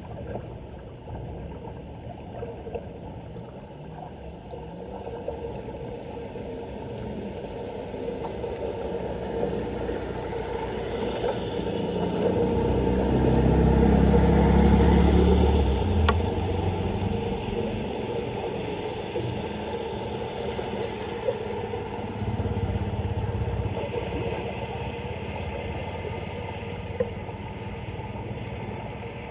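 Steady rushing noise of floodwater pouring into a street drain. A low rumble swells and fades about halfway through.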